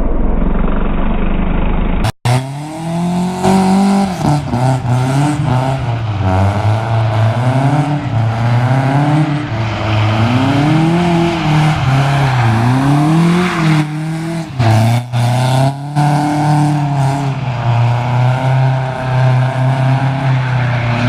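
Car engine revving hard, its pitch rising and falling again and again as the throttle is worked while drifting the car sideways on a wet road. A different, muffled noise fills the first two seconds before a brief cut.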